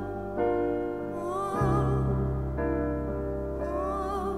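Slow background music of sustained chords, with a wavering melody line coming in about a second in and again near the end, over a deeper bass chord change.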